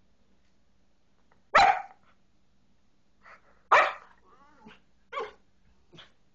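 Australian Shepherd puppy barking: two loud, sharp barks about two seconds apart, a brief wavering whine, then two softer barks near the end.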